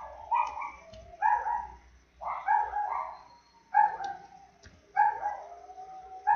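Dogs barking over and over, about one bark a second.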